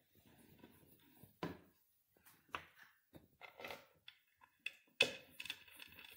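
Scattered light knocks and taps of a crib's painted wooden pendulum parts being handled and fitted together on a workbench, the loudest about five seconds in.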